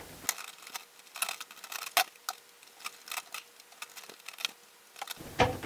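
Wire strippers clicking and snipping as the insulation is pulled off electrical wire ends: a string of irregular short clicks, with a sharper click about two seconds in.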